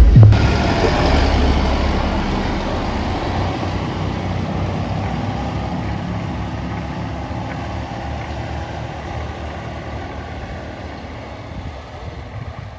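Snow-removal tractor engine running steadily, growing gradually fainter throughout.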